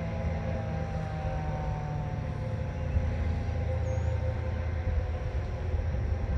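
Distant Federal Signal 2001-SRN outdoor warning siren, its tone slowly falling in pitch as it winds down at the end of a one-minute attack signal, over a low rumble of wind.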